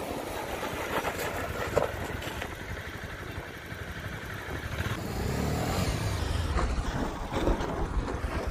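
Honda CB300R's 286 cc single-cylinder engine running at low speed as the motorcycle rides across loose dirt and brakes. It gets louder about halfway through as the bike comes closer.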